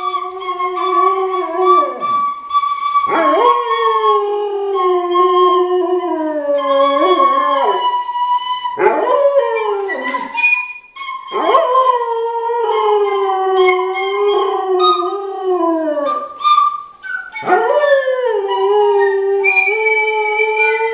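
A large dog howling along to a small wind instrument. The howls come as a series of long, pitched cries, each sliding downward, with short breaks between them, over the instrument's steadier high notes.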